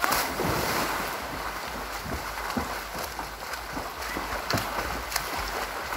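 Pool water splashing and churning: a steady rushing wash with many small sharp splashes, which starts suddenly at the outset and carries on at an even level.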